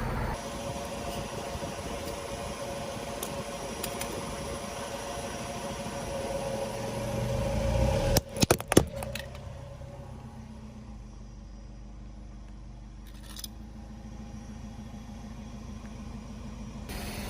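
A car's engine running as it creeps forward, getting louder, then a quick run of sharp cracks about halfway through as a tyre crushes something crunchy. After that the engine runs low and steady.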